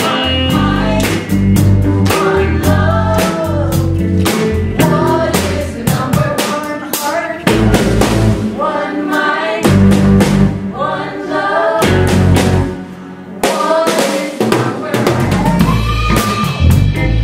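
Live rock band playing a song: drum kit, electric bass and electric guitar, with a lead voice and backing singers. The band drops back briefly about thirteen seconds in, then comes back in full.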